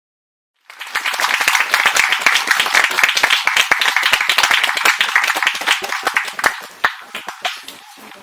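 Audience applauding. The clapping starts about a second in and dies away over the last two seconds to a few scattered claps.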